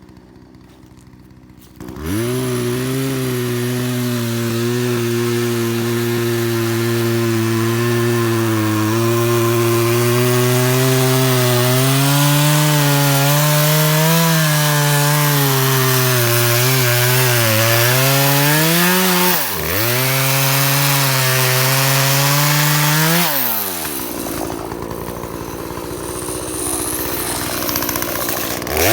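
Chainsaw starting up about two seconds in and running at high revs, its pitch sagging and recovering as it cuts wood. The engine note dips briefly, then falls away about three quarters of the way through before revving up again at the very end.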